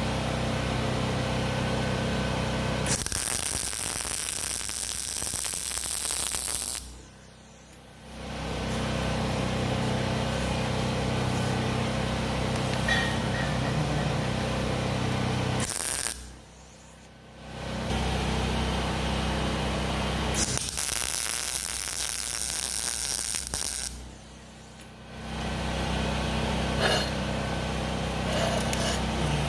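Welding on steel exhaust pipe: a steady crackling arc over a low electrical hum, which stops briefly three times as the welder pauses between beads.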